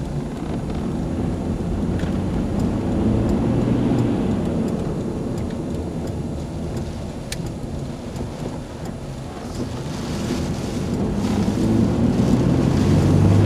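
Strong straight-line storm winds gusting around a car, with the car's engine running underneath and a few sharp ticks. The wind builds, eases a little past the middle, and builds again near the end.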